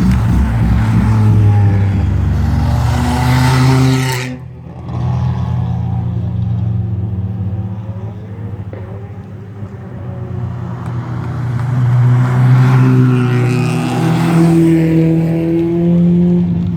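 Competition cars' engines passing at low speed as they drive back down a hill-climb course, the engine notes swelling and fading as each goes by. There is a sudden dip about four seconds in, then another car comes up loudest near the end.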